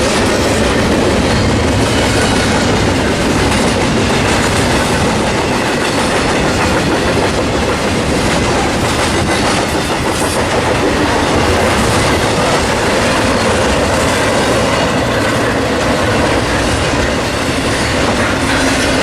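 A long train's cars rolling steadily past close by, the steel wheels running on the rails.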